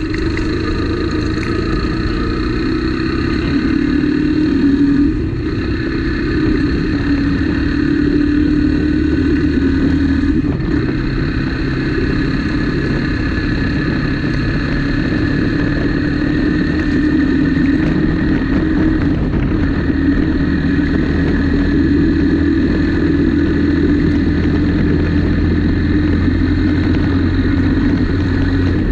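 Motorcycle engine running steadily while riding, its pitch wavering a little with the throttle.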